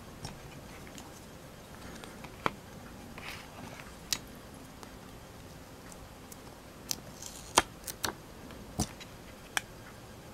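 Small plastic Playmobil toy pieces clicking and tapping as they are handled and fitted: several short, sharp clicks scattered through, over a faint steady hiss.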